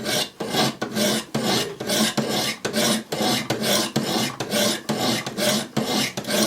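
100-grit diamond stones of a Wicked Edge guided sharpener stroked along the bevel of a D2 steel knife blade. A steady rasping at about two strokes a second.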